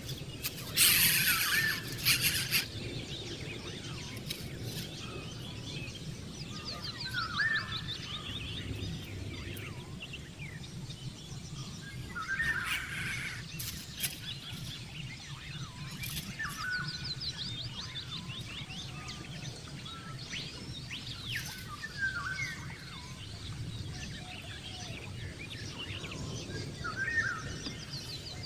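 Birds chirping outdoors, with short chirps and quick high trills repeated every few seconds over a steady background hiss. Brief loud noisy bursts come about a second in and again around thirteen seconds.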